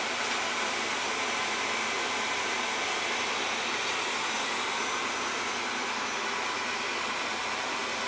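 Wyze robot vacuum running steadily as it drives itself back to its charging dock: an even whirring hiss from its fan and drive, with a faint high whine.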